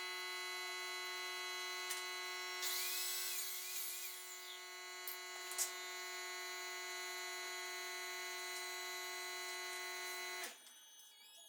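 Electric power tool motor running at a steady speed with a fixed-pitch hum, a rougher, noisier stretch about three seconds in, then switching off sharply near the end.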